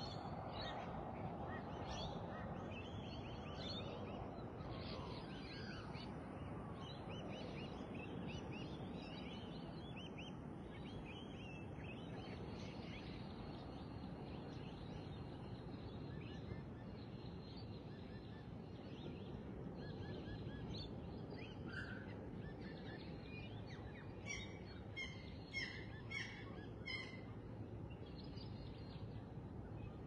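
Several wild birds calling in a dawn chorus over a steady low background noise, with a run of about six sharp, repeated calls a little before the end.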